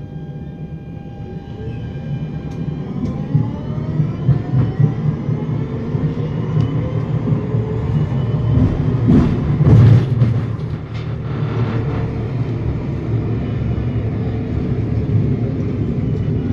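NF6D low-floor tram accelerating: the traction motor whine climbs in pitch from about two seconds in, over a steady rumble of wheels on rail. A brief louder rumble comes about ten seconds in.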